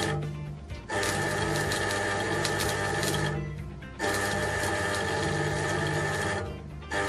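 Crackling, buzzing arc of a 100 V stick welder burning a welding rod on steel. The crackle fades away and cuts back in abruptly three times: just after the start, about halfway, and near the end.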